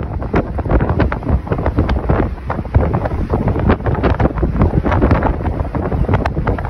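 Wind buffeting the microphone of a phone in a moving vehicle, a loud, uneven rush of gusts with the deep rumble of travel beneath.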